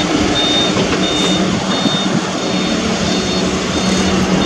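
A truck running with a dense, steady engine noise while a reversing alarm beeps at intervals with a short high tone.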